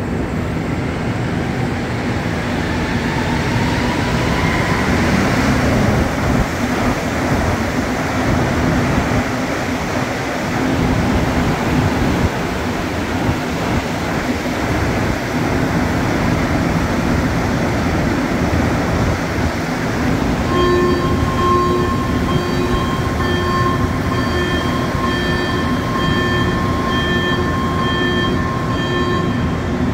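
Rubber-tired Montreal Metro train running through the station, with a rising motor whine in the first few seconds over steady running noise. Past the two-thirds mark a repeated beeping tone sounds over it for about nine seconds.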